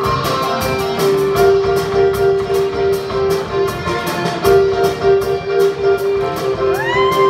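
Live show choir performance with its band: a drum kit keeps a steady beat under held sung and played notes, and near the end a note slides up and is held high.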